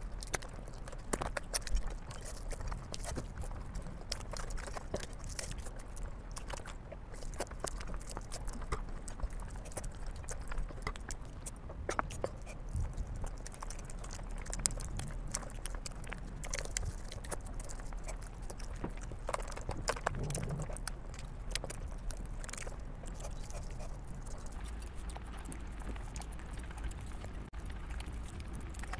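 Close-up eating sounds of someone eating fried rice and curried chicken by hand: wet chewing and lip smacks, with fingers squishing and scooping rice on a plate, many small clicks and smacks throughout.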